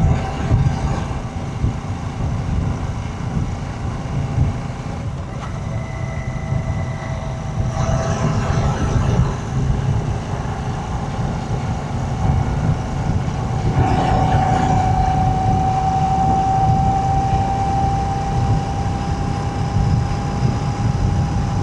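Royal Enfield Shotgun 650's 648 cc parallel-twin engine and exhaust running under way, with a steady low rumble and a whine that rises slowly in pitch over the second half.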